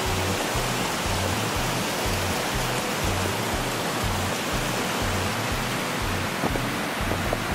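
Steady rushing noise, as of running water or rain, over ambient music with a low, evenly pulsing bass. A few faint ticks come in near the end.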